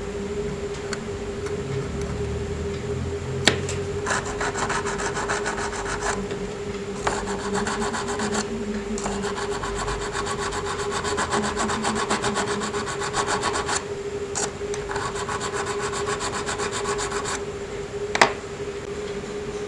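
Needle file scraping along the die-cast metal body of a Matchbox Ferrari Testarossa in four bouts of quick strokes, with short pauses between. A few sharp clicks, the loudest near the end, and a steady low hum underneath.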